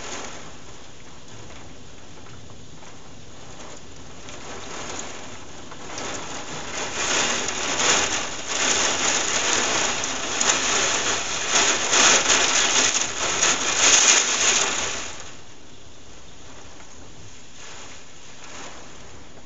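Heavy thunderstorm rain pouring down. It swells much louder and gustier for several seconds in the middle, then drops back to a steady hiss.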